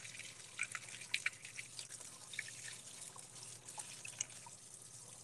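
Kitchen faucet running in a thin stream into a sink and over hands, faint, with scattered drips and small splashes that thin out after the first couple of seconds.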